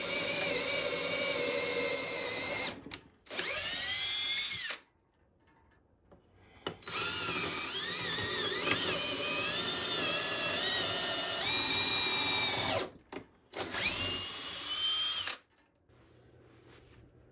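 Handheld electric drill running in several trigger bursts: a long run, a short one, a longer run whose pitch shifts under load, two quick blips and a final burst. Each burst spins up and winds down, and it stops a couple of seconds before the end.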